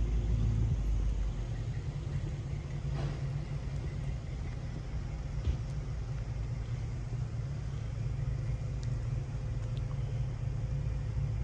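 Steady low engine rumble with a faint constant hum, as of a vehicle idling close by, with a few faint clicks.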